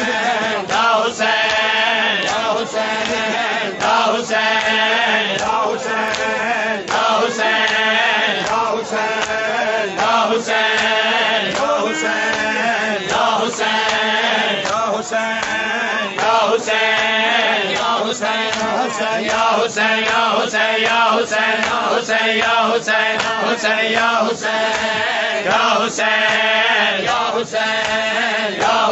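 A noha, a Shia lament, chanted by a male reciter over a microphone with mourners' voices joining in. It is kept to a steady beat by frequent sharp slaps of hands striking bare chests in matam.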